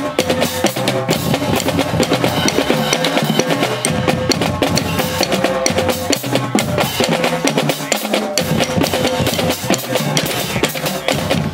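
Marching drumline playing: snare drums, tenor drums, pitched bass drums and crash cymbals in a fast, dense rhythm that comes in all together at once.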